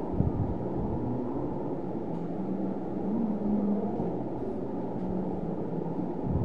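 Steady low rumble of background noise, with faint pitched sounds in the middle.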